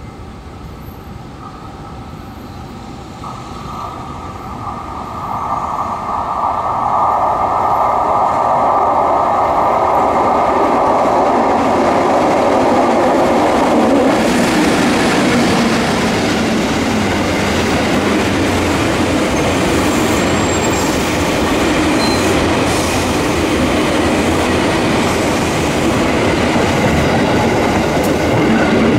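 EF64 1000-series electric locomotive approaching and passing while hauling a 205-series commuter train set. It grows loud over the first several seconds with a whine. About halfway through the whine gives way to the steady rumble and clatter of the train's wheels on the rails as the cars roll by.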